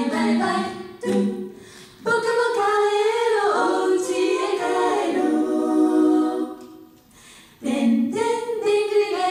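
Five-member a cappella vocal group singing chords into microphones, with no instruments. About two seconds in the singing dips briefly; a held chord fades out around six and a half seconds in, and after a short gap the group starts singing again.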